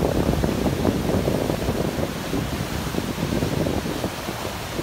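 Steady rush of wind and fast-flowing floodwater, with gusts buffeting the microphone.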